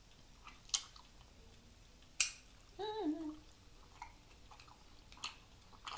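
Close-up eating sounds of grilled beef short rib being bitten and chewed: a handful of sharp wet mouth clicks, the loudest about two seconds in, and a short hummed "mm" about three seconds in.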